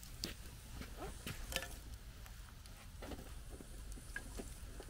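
Scattered light clicks and crackles from a wood fire in a metal fire pit, with small knocks as hot coals are set on a cast-iron Dutch oven lid with fire tongs.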